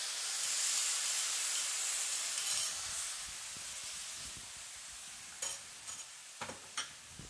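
Soy-based sauce poured into a hot wok of frying pork and sizzling hard, the sizzle slowly dying down as it cooks in. A wooden spoon stirs, with a few sharp knocks against the wok near the end.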